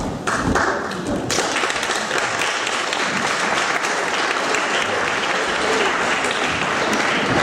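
Audience applauding: a dense, steady clapping that swells in about a second in and keeps going.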